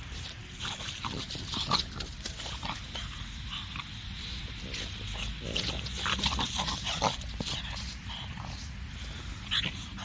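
French bulldog sniffing and snuffling with her nose down in the snow and grass, in short, irregular bursts.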